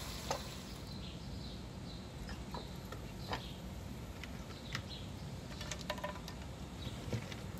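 Butter sizzling in a frying pan, a steady hiss with scattered small pops and crackles; raisins and cashews go into the hot butter near the end.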